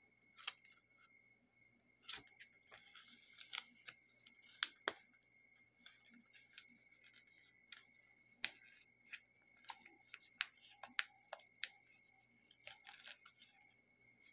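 Junk journal pages being handled: scattered sharp clicks and taps with short crinkly rustles as stiff paper and a glossy collaged page are flipped and folded over. A faint, steady high-pitched tone runs underneath.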